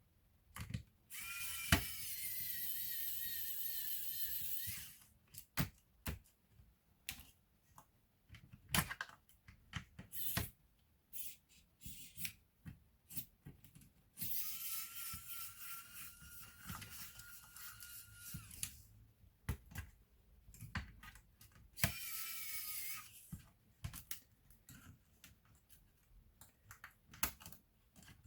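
A small electric screwdriver motor whirring in three runs, of about four seconds, four and a half seconds and one second, driving the notebook's screws. Scattered clicks and taps of screws and plastic parts being handled come between the runs.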